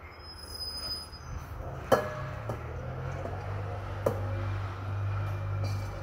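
A stainless steel bowl clinks and scrapes as quinoa salad is scraped out of it with a plastic spatula into a ceramic serving bowl. There are two sharp ringing clinks, the louder about two seconds in and another about four seconds in, over a steady low hum.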